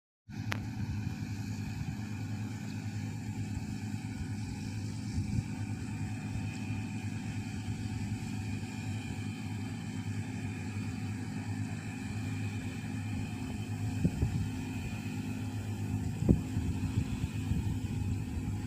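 An engine running steadily at constant speed, with a couple of short knocks near the end.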